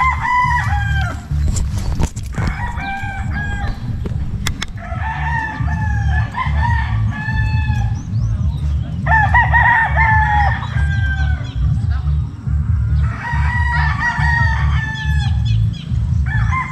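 Roosters crowing again and again, a long crow about every three or four seconds, some crows overlapping, over a constant low rumble.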